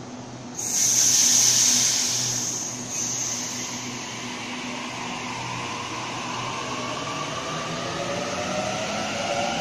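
Sydney Trains Waratah electric double-deck train pulling away: a loud hiss of air starts about half a second in and lasts a couple of seconds, then the traction motors' whine rises steadily in pitch as the train gathers speed.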